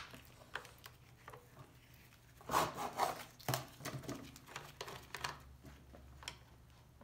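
Plastic top cover of a Homelite 33cc chainsaw being handled and lifted off after its screws are removed: a short spell of plastic rattling and scraping about two and a half seconds in, with scattered light clicks and taps before and after.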